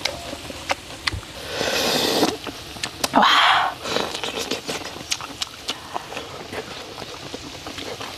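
Eating at the table: scattered clicks and scrapes of chopsticks and dishes, with two short noisy rushes, one about two seconds in and one about three and a half seconds in.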